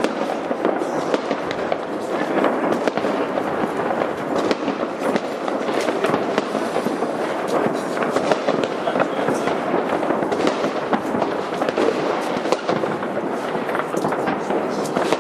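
Fireworks going off in a dense, continuous barrage: many rapid overlapping pops and crackles with no break.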